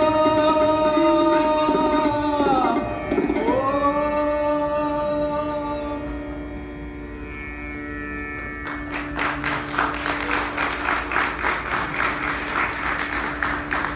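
Male voice singing the closing held notes of a Hindustani classical bandish in raag Bhairav over a sustained harmonium note; the voice dips and rises about three seconds in and stops around six seconds, the harmonium note lingers, and audience applause breaks out about nine seconds in.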